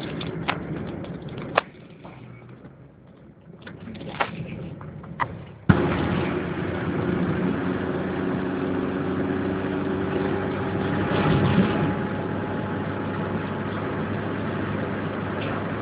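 Inside a moving car on a wet road: a steady engine hum and tyre noise come in abruptly about six seconds in, after a quieter stretch broken by scattered sharp ticks. The noise swells briefly just past the middle.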